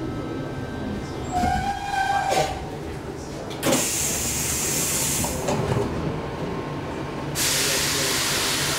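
Stockholm metro C15 train at a stop. A brief whine comes from the train about a second and a half in, then a loud burst of compressed-air hiss midway. A second sustained air hiss starts near the end as the doors open.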